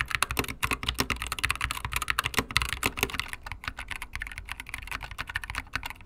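Fast continuous typing on mechanical keyboards: first a GK61 with unlubed Gateron Optical Silver switches and ABS keycaps, then, from about halfway, a custom keyboard with self-lubricating NovelKeys Cream switches, foam under the switches and PBT keycaps, whose keystrokes come a little quieter and have a more refined sound.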